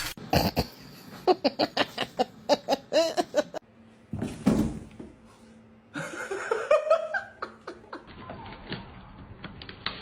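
A person laughing hard in a quick run of short bursts, followed a few seconds later by a rising drawn-out cry.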